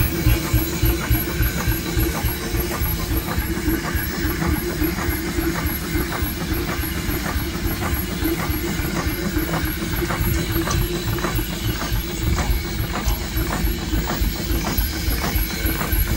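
Case steam traction engine running with no load, its engine beating steadily a few times a second with regular mechanical knocks from the crank and flywheel.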